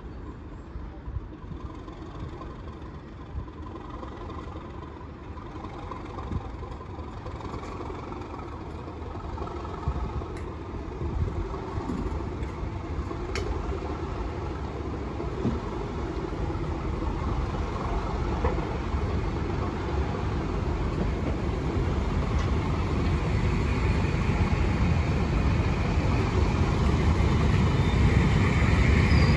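Slow-moving test train passing, wheels clicking now and then over the rail, with the diesel engine of the class 37 locomotive propelling it at the rear growing steadily louder as it draws near.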